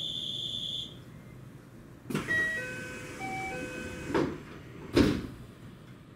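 Train passenger-door sequence: a steady high-pitched tone cuts off about a second in, then a chime of short notes at different pitches plays. Two loud thuds follow, the second the loudest, as the sliding doors shut.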